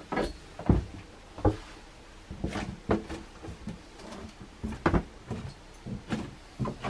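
Irregular soft knocks and thumps, roughly one a second, from someone moving about inside a yacht's wooden cabin.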